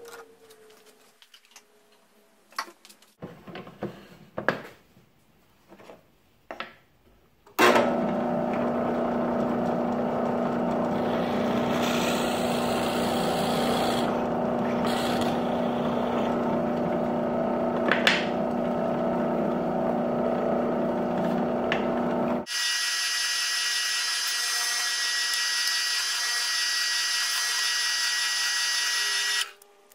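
Benchtop drill press: a few clicks and knocks of handling, then the motor starts about seven and a half seconds in and runs with a steady whine while a half-inch Forstner bit bores a counterbore into wood. About two-thirds through, the lower part of the sound drops away, leaving a higher whine that cuts off just before the end.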